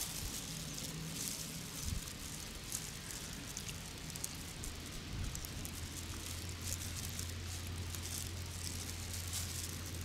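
Thin plastic gloves crinkling and small pearls clicking as they are picked out of an opened freshwater pearl mussel and gathered in the palm. A steady low hum comes in about halfway through.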